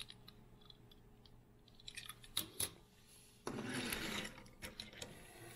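Small die-cast toy cars being handled: a few sharp clicks of metal and plastic knocking together about two seconds in, then a short scraping rustle, and a few faint clicks near the end.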